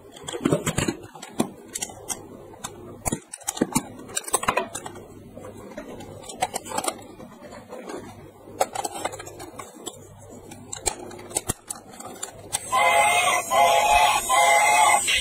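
Clicks and knocks of hard plastic toy trains being handled. Near the end a battery-powered toy train locomotive starts playing a loud electronic tune.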